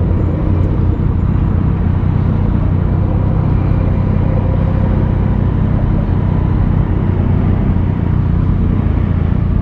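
Yamaha FZ-09's 847 cc inline-three engine running at a steady pitch, with no revving, heard close with a rushing noise over it.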